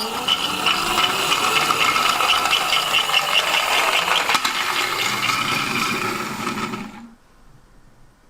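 Miniature toy car rolling and rattling along a handmade slope track, its wheels giving a dense, loud rattle that stops abruptly about seven seconds in.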